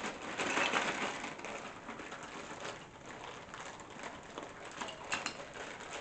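Clear plastic bag crinkling as it is torn open and handled, loudest in the first second or so, with a few light clicks from the hard plastic caster wheels inside knocking together.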